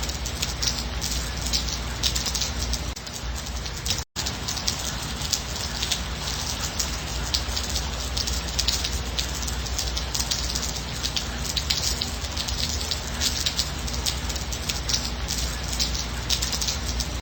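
Steady rain, a dense sound of many individual drops hitting a surface over a low, steady rumble. The sound cuts out completely for an instant about four seconds in.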